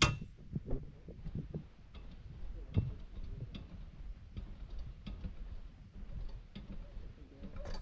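Irregular light clicks and knocks over a low rumble, with a sharper knock right at the start and another about three seconds in: handling noise as the dirt bike and its weighing setup are moved about.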